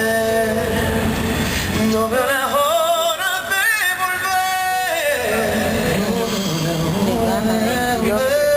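Live pop ballad at a sound check: a voice sings long, wavering notes over band accompaniment.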